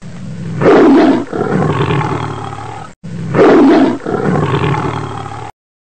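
Tiger roar played twice back to back, the same recording repeated. Each roar is loudest near its start, tails off more quietly over about two seconds and cuts off abruptly.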